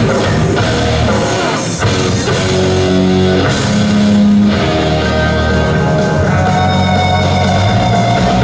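Rock-style music with electric guitar and drums, with sustained notes and chords.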